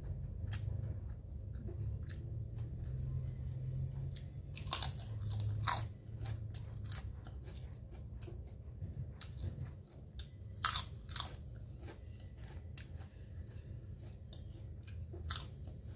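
A person eating by hand and chewing food close to the microphone, with scattered wet mouth clicks and a few louder smacks, over a low steady hum.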